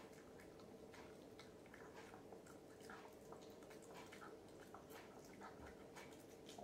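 Near silence: a faint steady hum with scattered small, irregular clicks.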